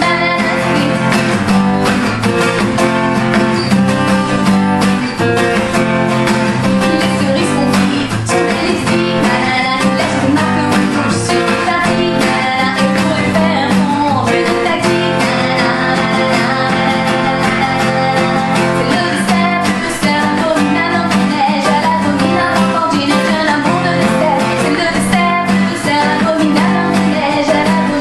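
Acoustic guitar strummed steadily, with a woman singing along.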